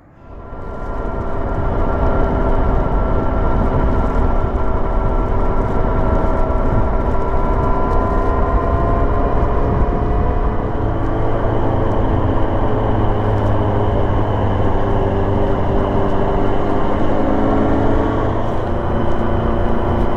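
Inline-four motorcycle engine running at road speed, its note sagging slowly and then rising again near the end, with heavy wind noise on the microphone.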